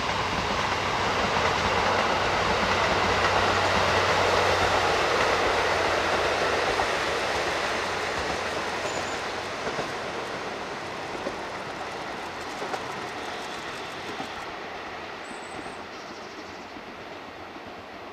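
Diesel train running past, loudest a few seconds in, then fading away with scattered clicks of wheels over rail joints.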